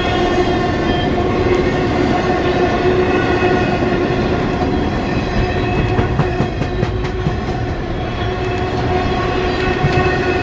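Freight train's cars rolling past with a steady rumble and a clickety-clack of wheels on rail joints, with a steady pitched ringing tone held over it.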